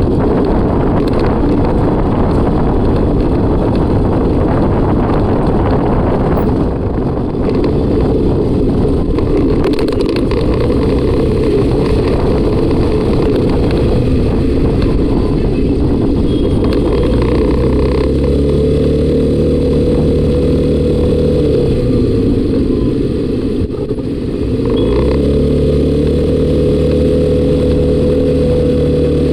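Suzuki Burgman Street EX 125 cc single-cylinder scooter engine running under way, with wind rushing over the microphone. In the second half the engine note dips as the throttle eases off a little after the twenty-second mark, then rises again as it accelerates.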